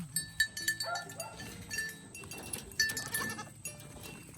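Young Nigerian Dwarf goats bleating, in short calls.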